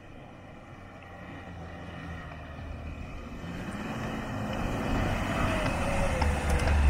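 A new Land Rover Defender towing an off-road caravan drives along a sandy dirt track towards the listener. The engine and tyres grow steadily louder as it approaches, and a heavy low rumble builds near the end as it comes close.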